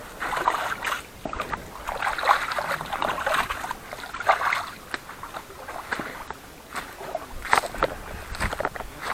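Water sloshing and lapping in repeated short washes, with a few sharp crunching steps near the end.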